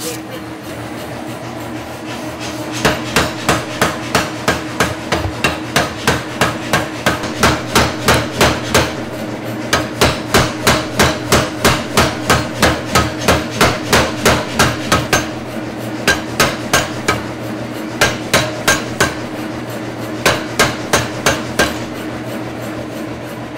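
Air hammer pounding red-hot iron stock: runs of rapid, evenly spaced blows about three a second, broken by short pauses, over a steady machine hum.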